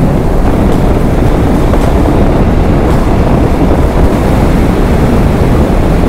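Steady rush of wind on the microphone of a Royal Enfield Hunter 350 motorcycle cruising at highway speed, with its single-cylinder engine running underneath.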